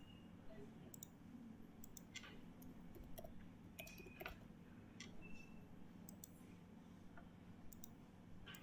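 Faint, irregular clicks of a computer keyboard and mouse as account details are typed in, over a low steady hum.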